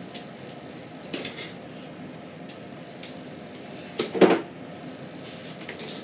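Cardboard packaging of a boxed desktop PC being opened by hand: a few short scrapes and knocks, the loudest about four seconds in.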